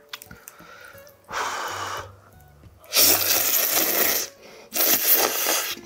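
A man slurping tonkotsu ramen noodles: a shorter, quieter slurp about a second in, then two long, loud slurps.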